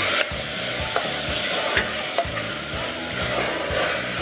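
Wooden spatula stirring and scraping thick masala with yogurt in a pressure cooker, its strokes knocking against the pan about two or three times a second, over a steady sizzling hiss from the hot pan with the burner off.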